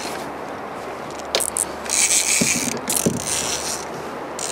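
Fishing reel being cranked in several short bursts of whirring as a small white sturgeon is reeled in, with a few light knocks in between.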